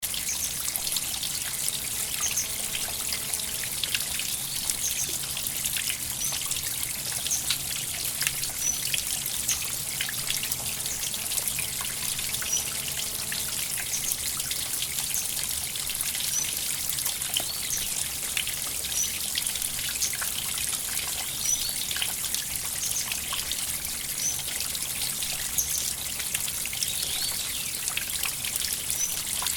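River water trickling steadily, with many small splashes and drips, and a few faint short high chirps now and then.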